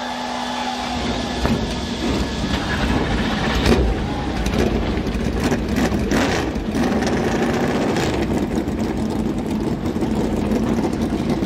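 A field of NASCAR Cup Series stock cars' V8 engines firing up on the start command and running together. The engine noise builds over the first second or two, with a cluster of sharp blips a few seconds in.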